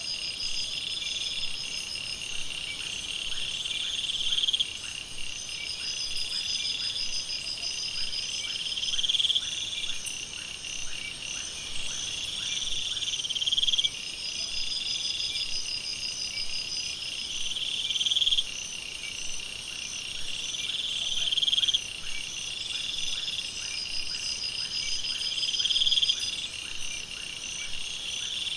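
Night jungle chorus of insects and frogs: a loud buzzing call swells for about four seconds and cuts off abruptly, again and again every four to five seconds, over steady high-pitched trills and pulsed chirping, with a faint run of quick clicks beneath.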